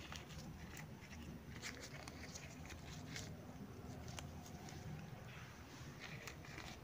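Small latex balloons stretched and rubbed between the fingers: faint, scattered rubbery squeaks and crinkles over a low steady hum.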